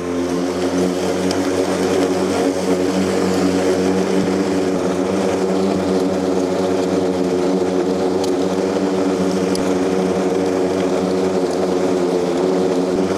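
Toro commercial battery-powered rotary lawn mower running at full power, its electric blade motor giving a steady, even hum as it cuts and bags grass.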